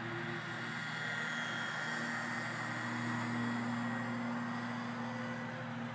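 WLToys V911 micro RC helicopter's electric motors and rotor whirring steadily in flight, the pitch wavering slightly with the throttle.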